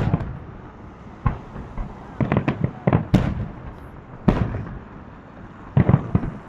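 Fireworks salute: aerial shells bursting overhead in a run of sharp bangs at uneven intervals, some coming in quick clusters of two or three.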